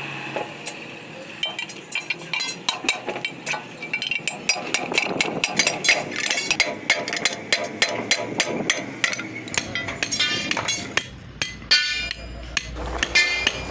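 Repeated sharp metal knocks and clinks from dismantling an old pedestal fan's motor and handling its parts, with a couple of bursts of fast rattling clicks near the end.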